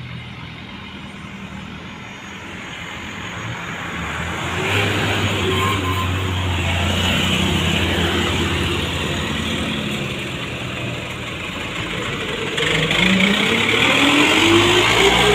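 Diesel engine of a Mitsubishi medium bus running as it comes through a bend and draws close, growing louder about four seconds in. Near the end it revs up under hard acceleration, its pitch rising as it passes close by.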